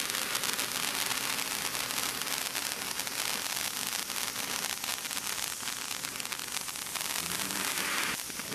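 Ground fountain firework spraying sparks: a steady hiss with fine, rapid crackling.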